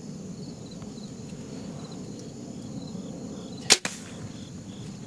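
A hunting bow firing a single shot: one sharp, loud crack of the released string about three and a half seconds in, as the arrow is loosed at a groundhog at close range.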